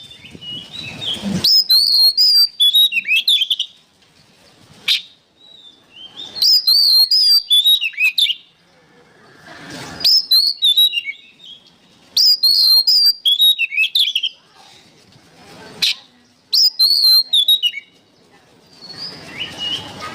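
Oriental magpie-robin (kacer) in full song: short bursts of rapid, varied, high whistled phrases come every few seconds, with quieter gaps and a few single sharp notes between them.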